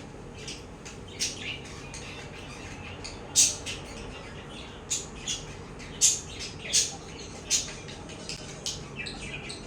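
Budgerigar giving about a dozen short, sharp chirps and squawks at irregular intervals, the loudest a little over three seconds in and again around the six- to seven-second mark.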